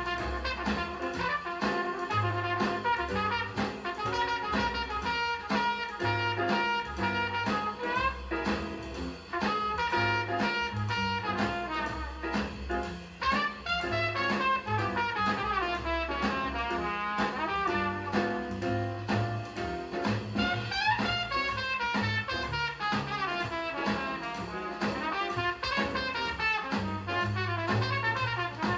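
Small-group jazz with horns, bass and drum kit playing from a vinyl record through a homemade 2A3 single-ended tube amplifier and JBL 4312D studio monitor speakers.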